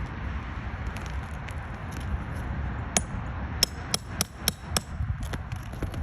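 A hammer striking nails or roofing, with about six sharp knocks in quick succession over a steady low rumble.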